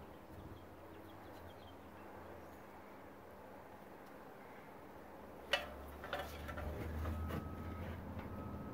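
Faint handling noise, then a sharp plastic click about five and a half seconds in and a few lighter clicks after it: the wiring junction box and brake wear sensor connector being unclipped.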